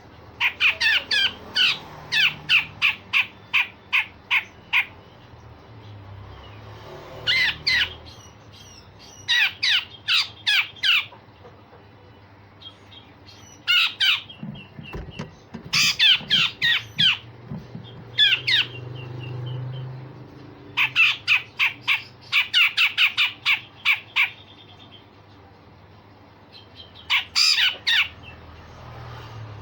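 Cucak jenggot (grey-cheeked bulbul) giving harsh, rasping call bursts: quick runs of sharp, downward-sweeping notes, about five a second, repeated in phrases with short pauses between them.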